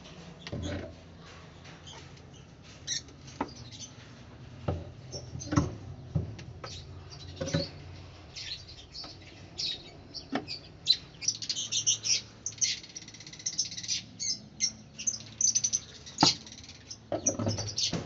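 A flock of lovebirds chirping in short, high calls, thickest about eleven to fourteen seconds in, with a few sharp clicks among them.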